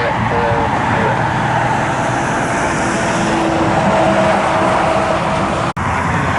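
Car running on the road: steady engine and road noise, which cuts out for an instant near the end.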